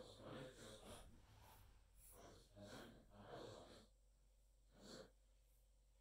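Near silence, with a few faint, soft noises in the first three and a half seconds and one more about five seconds in.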